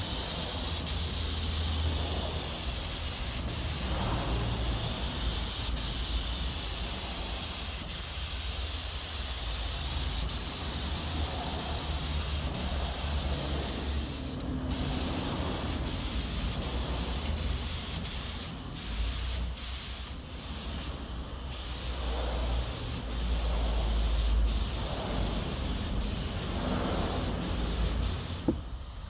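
Gravity-feed air spray gun hissing steadily as paint is sprayed onto a car body, over a low rumble. The hiss breaks off briefly several times in the second half as the trigger is released, and stops near the end.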